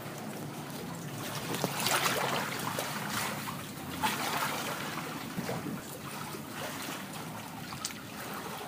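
Water splashing and lapping in uneven bursts, loudest about two seconds in, over a steady low rumble.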